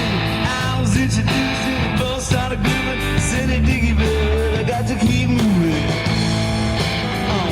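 Live rock band playing, with electric guitar, bass, drums and a singer's voice.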